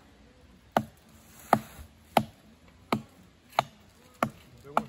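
A blade chopping into a wooden log: seven sharp strikes, evenly paced about two-thirds of a second apart.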